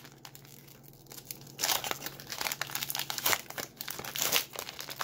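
Plastic foil wrapper of a Panini Threads basketball card pack being torn open and crinkled by hand. Quiet at first, with the dense crackling starting about a second and a half in.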